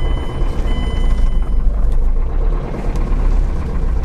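Car engine running at low revs with a fast, even knocking over a heavy rumble, heard from inside the cabin. The knock is a slight connecting-rod bearing knock.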